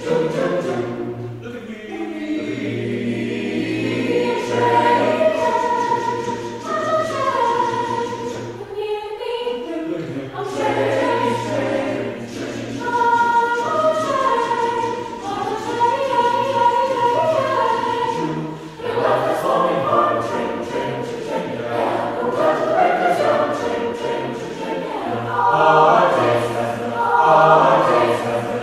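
College chorale singing a cappella, many voices in harmony over a low bass line, with a brief break about nine seconds in.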